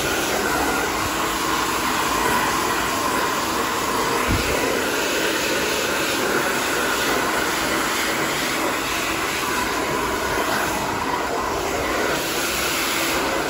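Hand-held hair dryer with a concentrator nozzle running steadily, blowing air through wet hair held on a round brush: an even rush of air with a faint steady motor hum.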